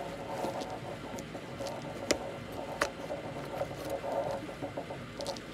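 Cardboard box and packaging being handled: a steady rustling with a couple of sharp clicks.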